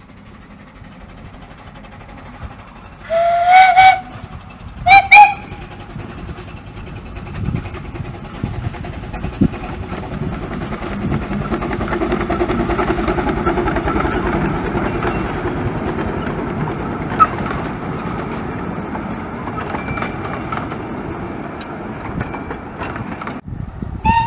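Steam whistle on a 15-inch gauge steam train blowing twice, a longer blast about three seconds in and a short one about five seconds in. Then the double-headed train's running noise grows as it passes close, loudest around the middle, and fades away.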